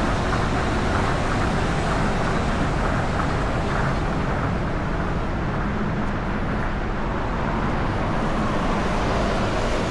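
Tokyo Monorail train running along its elevated guideway and moving off, over a steady wash of road traffic noise.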